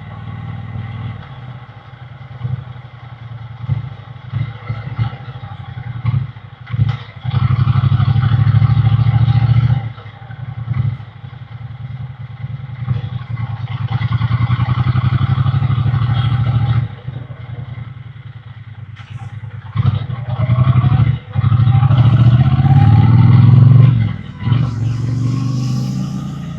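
Triumph Bonneville T120's 1200 cc parallel-twin engine and exhaust on the move, alternating between a low rumble at light throttle and louder stretches under acceleration, with the pitch rising as it pulls hard near the end.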